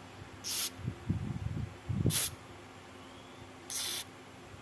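Aerosol electronic contact cleaner sprayed through its straw onto a circuit board in three short hissing bursts, about a second and a half apart, the middle one loudest. Low handling noise falls between the first two bursts.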